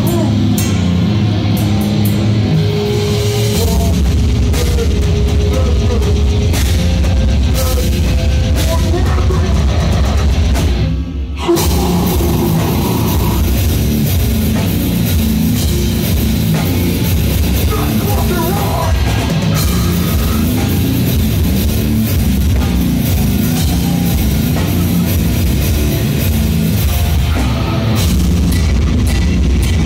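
Live heavy hardcore band playing loud, with distorted guitars, bass and drums. The band stops for a split second about eleven seconds in, then comes straight back in at full volume.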